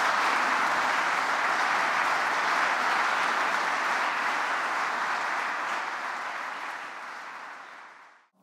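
Large seated audience applauding, a dense steady clatter of many hands that fades away near the end.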